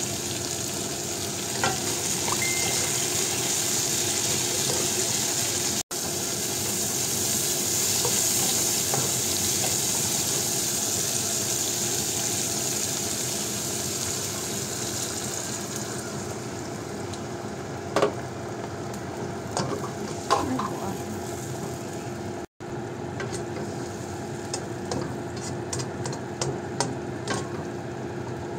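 Yardlong beans and onion sizzling in a hot wok. About halfway through, water is poured in and the sizzle dies away. After that a plastic spatula clicks and scrapes against the wok as the beans are stirred.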